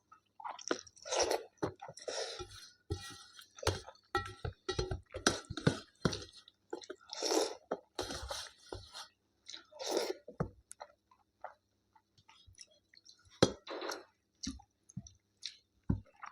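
A person chewing and crunching food, in irregular short bursts that come thickly for the first ten seconds or so and then thin out.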